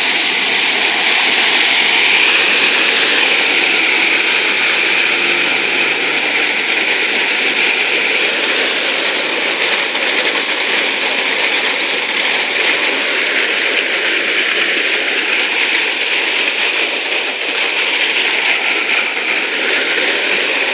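Steady rush of water pouring through the opened bottom drain of a marine shrimp pond.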